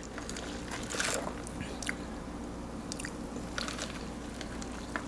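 Quiet mouth sounds close to the microphone as soda is sipped through a straw: a few scattered soft clicks and swallows.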